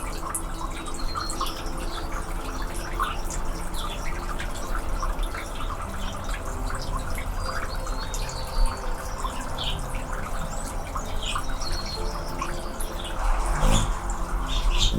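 Anna's hummingbirds chirping: many short, sharp chip notes scattered irregularly, over a steady low background hum. A brief louder burst of noise comes near the end.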